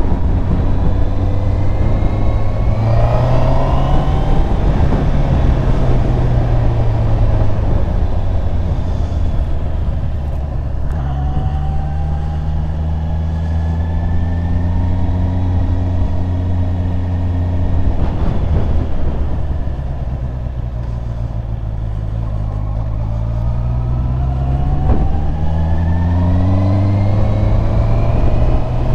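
Honda CBR650R's inline-four engine under way, its revs climbing and falling as the bike accelerates and eases off. The revs drop back near the middle and climb again near the end.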